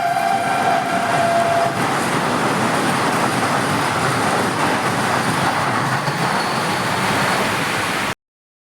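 Train horn blowing one held note that stops about two seconds in, then the steady rushing noise of a moving train. The sound cuts off abruptly near the end.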